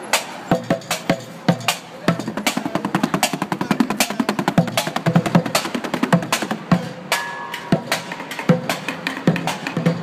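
Street bucket drumming: upturned plastic buckets and crates struck with drumsticks in fast, dense rolls with louder accents. A steady high tone joins about seven seconds in.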